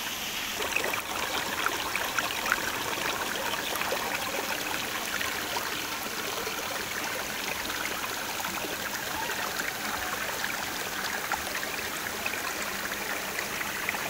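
Shallow stream running and trickling over rocks in a steady rush, with small cascades between the stones and a few sharper clicks in the first few seconds.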